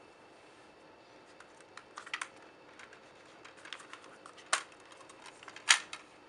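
Plastic clicks and clacks of a multi-disc DVD case being handled as its hinged disc tray is turned over. The two sharpest clacks come about four and a half and nearly six seconds in.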